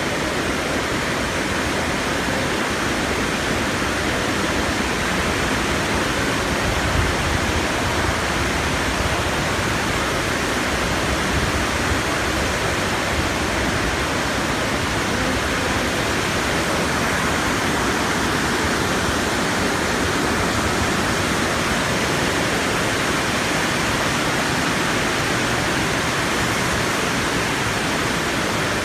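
Steady, loud rushing noise, even throughout, with no separate splashes or footsteps standing out.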